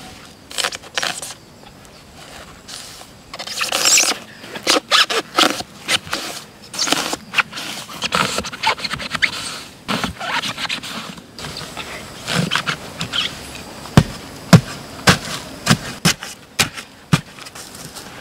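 Dry pine needles and grass scraping and rustling as they are handled and pushed into a hollow log, with several sharp knocks near the end.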